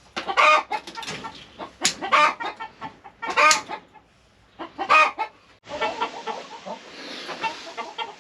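Chickens clucking: several loud, short calls in the first five seconds, then softer, quicker clucking after a sudden change in the sound about six seconds in.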